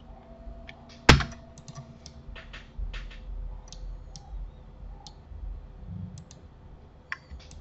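Computer keyboard keys and mouse buttons clicking in scattered, irregular presses, with one sharper click about a second in.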